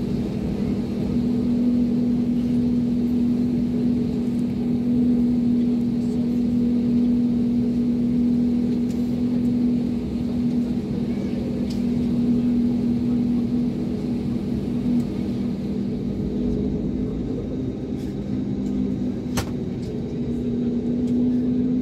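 Inside the cabin of an Airbus A320neo on the ground: its CFM LEAP-1A turbofans running at idle, a steady drone with a couple of low steady tones over a rumble. A brief faint click near the end.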